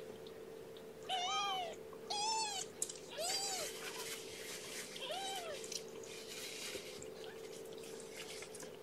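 Young kitten, about two and a half weeks old, mewing four times in the first half, each high mew rising and then falling in pitch. A faint steady hum sounds underneath.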